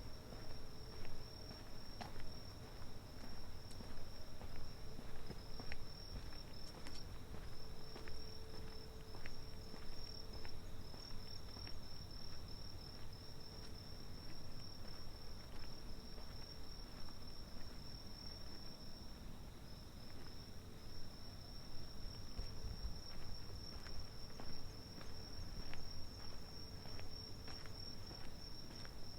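Night-singing insects trilling steadily and high-pitched, with footsteps recurring about once a second over a low background hum.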